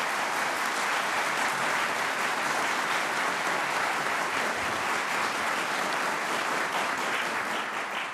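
Audience applauding: a steady round of clapping that fades out near the end.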